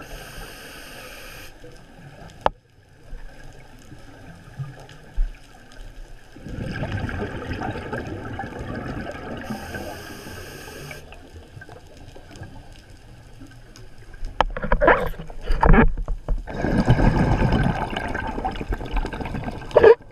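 Scuba regulator breathing heard through a GoPro's underwater housing: two long gurgling rushes of exhaled bubbles, with a fainter hiss of inhalation between them. A few sharp clicks or knocks come shortly before the second exhale.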